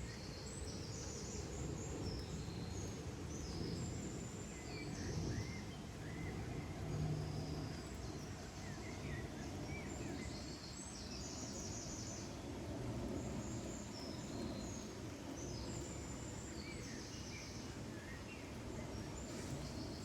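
Outdoor nature ambience: birds chirping in short, scattered calls over a steady low rushing background noise.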